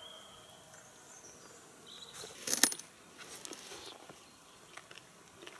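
Metal forks clinking and scraping against plates during a meal. A quick cluster of sharp clinks comes about two and a half seconds in, followed by a few lighter taps.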